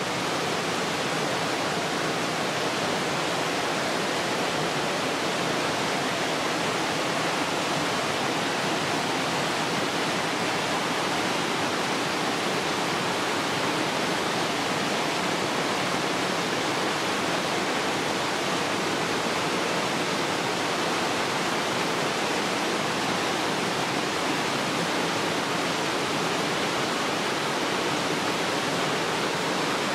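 Rushing river water: a steady, even roar of flowing water with no change.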